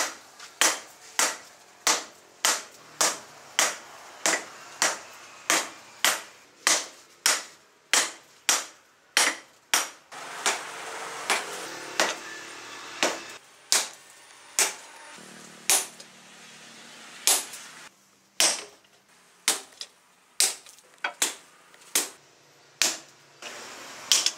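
Hand hammer striking hot leaf-spring steel on a steel stake anvil: sharp blows in a steady rhythm of about two a second. The blows stop for a few seconds near the middle, where a steady noise runs, then start again.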